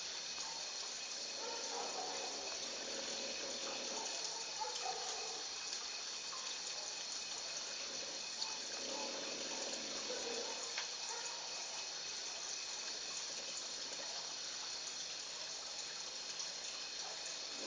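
A sleeping lion snoring, its slow breaths swelling and fading every few seconds over a steady hiss.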